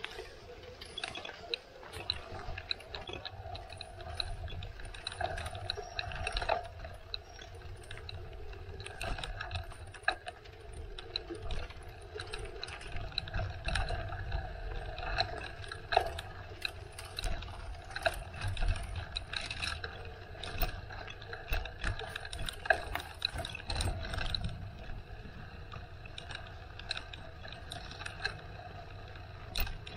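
Bicycle being ridden over a rough path: the bike rattles, with many irregular clicks and knocks over a steady low rumble.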